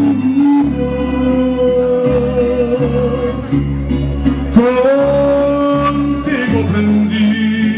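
Mariachi band playing live: violins and guitars with a steady guitarrón bass line, carrying long held notes, one sliding up to a higher held note about halfway through.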